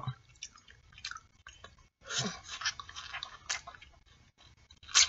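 Close-up eating of a boiled artichoke leaf: teeth scraping the flesh off the leaf and chewing, with small wet clicks and lip smacks. The sounds are sparse at first and come thicker about two seconds in.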